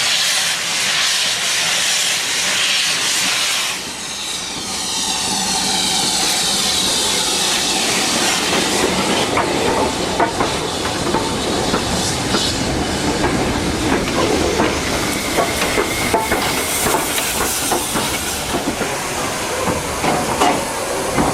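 Steam locomotive letting off steam with a loud hiss for the first few seconds, then a train moving along the track, its wheels clicking over the rails.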